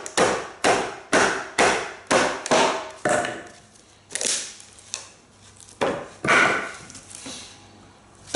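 Japanese nata hatchet being batoned through wood, a baton striking its spine: sharp wooden knocks about twice a second for the first three seconds, then a few slower, weaker strikes.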